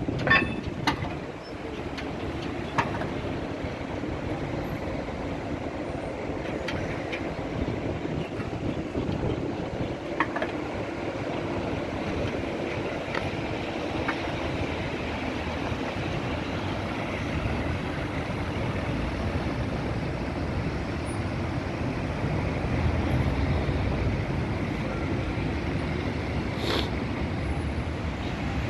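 Street traffic at a busy roundabout with an articulated Tatra KT4 tram running on its rails, a steady rolling noise with a few sharp clicks in the first few seconds and another near the end.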